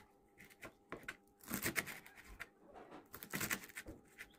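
Kitchen knife finely chopping spinach on a wooden chopping board: a quick, irregular run of blade taps against the wood, several a second.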